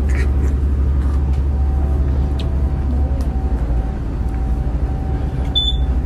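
Steady low rumble of a vehicle's running engine and motion, as heard from inside, with a brief high-pitched sound near the end.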